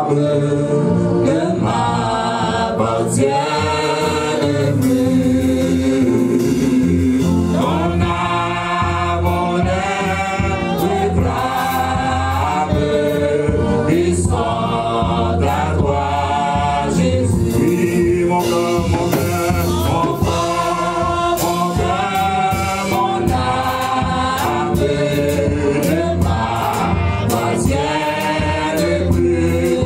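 Gospel worship singing: several voices singing a praise song over steady, sustained low accompaniment.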